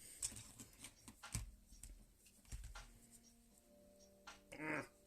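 Scattered light clicks and taps of plastic LEGO pieces being handled and pressed together, over faint background music. A brief pitched hum sounds near the end.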